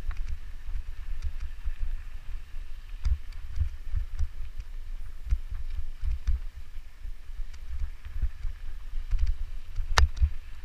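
Mountain bike riding over a dirt trail, heard from an action camera on the moving bike: low wind buffeting and rumble on the microphone, with light clicks and rattles from the bike and a sharper knock near the end.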